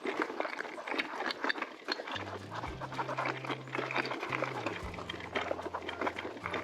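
Hardtail e-bike ridden along a rough, overgrown track: a dense crackle and rattle of tyres on stones and brushing vegetation, joined about two seconds in by a low steady motor hum that shifts pitch slightly.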